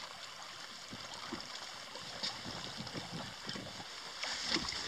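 Water lapping and slapping against the side of an inflatable boat, with irregular small knocks and wind noise; a louder rush of hissing noise comes in near the end.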